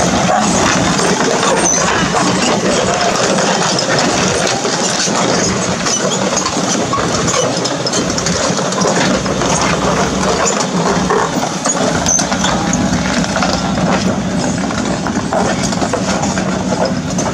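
Kobelco SK200 excavator's diesel engine running steadily, a constant low hum under a dense mechanical noise.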